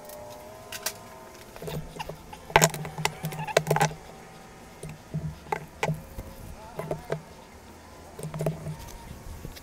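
Hard plastic port tubes clacking and knocking as they are picked up and set down on a workbench, with the lid of a can of pipe cement unscrewed and its dauber worked. The loudest cluster of knocks comes a few seconds in.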